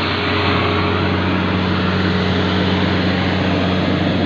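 Yanmar YH850 combine harvester's diesel engine and machinery running at a steady, loud drone, with a constant low hum and dense mechanical noise.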